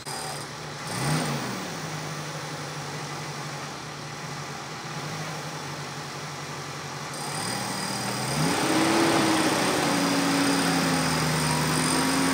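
Off-road 4x4's engine running. It blips briefly about a second in, then runs steadily, and near eight seconds in it revs up and holds at a higher, louder speed.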